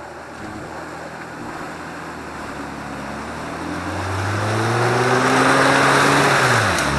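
Off-road 4x4's engine revving up under load, its pitch climbing for a couple of seconds and then dropping sharply near the end, over a growing rush of wheels churning through mud and water.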